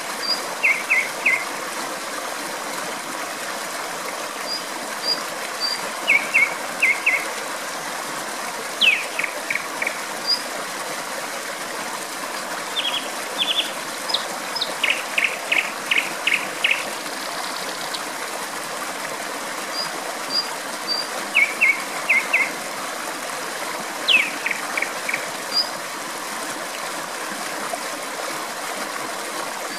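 A nightingale singing in short phrases of quick repeated notes every few seconds, over the steady rush of flowing water.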